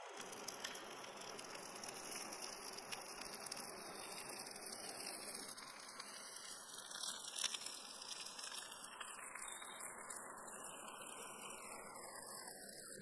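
Shrimp, baby corn and vegetables sizzling on a hot stone slab over a fire: a steady hiss with small crackles.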